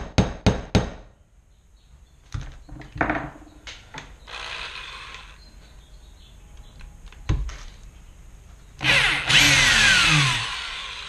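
Four quick hammer taps on a square driver bit seated in a stripped Phillips screw head, then a few handling clicks and a thunk. Near the end a corded drill runs the bit for about a second and a half and winds down, its pitch falling; the bit slips and rounds the screw head out further.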